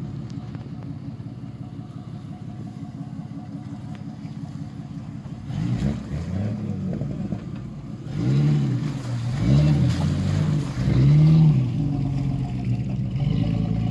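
Jeep Cherokee's engine running low and steady as it creeps into a deep creek crossing, then revved up and down several times under load as it climbs through, the revs loudest near the end.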